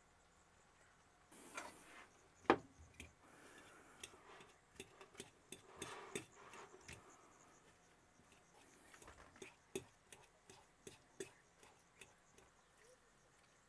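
Light clicks and knocks at irregular intervals, with one sharper knock about two and a half seconds in.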